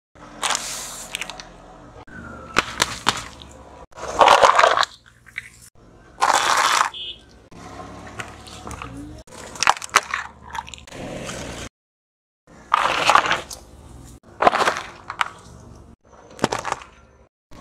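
A car tyre rolling over and crushing objects one after another, plastic containers among them: a string of short crunches and cracks, about nine in all, a second or two apart, with a low tyre rumble between and the sound cutting off abruptly at a couple of points.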